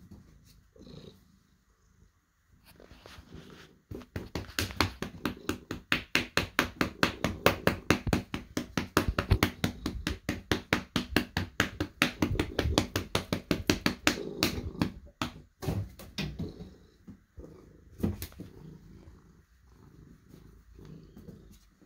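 A hand patting and smacking a cat's rump in a rapid, even rhythm of about five or six pats a second for some ten seconds in the middle, over the cat's steady purring. A few scattered pats follow near the end.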